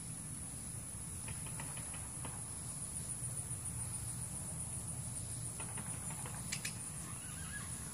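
A steady, high-pitched insect chorus that pulses for a couple of seconds in the middle, over a low rumble, with a few faint ticks and one sharper click near the end.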